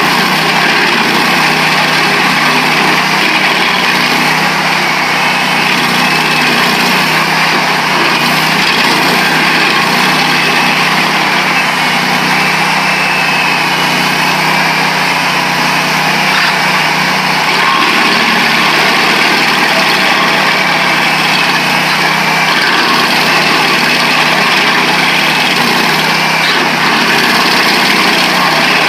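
Vermeer 222 stump grinder with a Honda engine running steadily at speed while its cutter wheel, missing half its teeth, grinds a hard old petrified pine stump.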